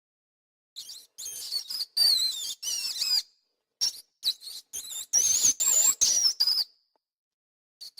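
Mouse squeaking: rapid runs of short, high-pitched squeaks that waver up and down in pitch, coming in two bouts with a brief pause between them. The squeaks begin about a second in and stop over a second before the end.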